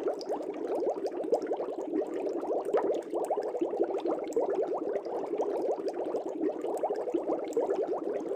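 Air bubbles streaming through aquarium water, a steady dense bubbling made of many quick rising blips.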